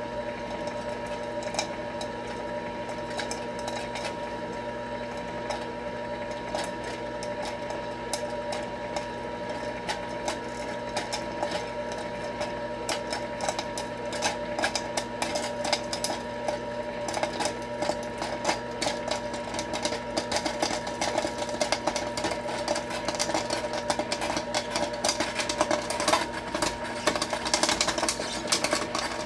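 Nostalgia Coca-Cola kettle popcorn maker running: the stirring-arm motor hums steadily while the oil heats in the kettle. Over the second half, clicks and pops grow denser and louder as the kernels begin to sizzle and pop.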